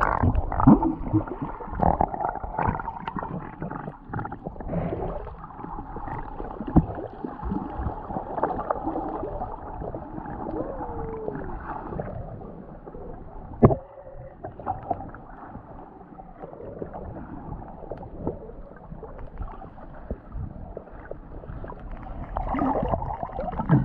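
Muffled underwater sound from a camera held beneath shallow sea water: sloshing and gurgling with scattered knocks, and one sharp click about 14 seconds in.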